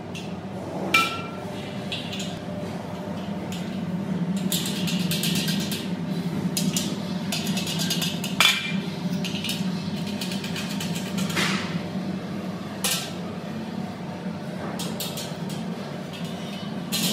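Painted steel shelving parts clanking and clinking as a supermarket gondola rack is put together. There are sharp metal knocks about a second in, at about eight and a half seconds and near thirteen seconds, with runs of fast rattling ticks between them, all over a steady low hum.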